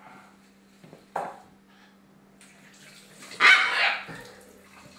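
Baby Shamrock macaw chick's harsh begging squawks during hand-feeding: a short call about a second in and a louder, longer one about three and a half seconds in.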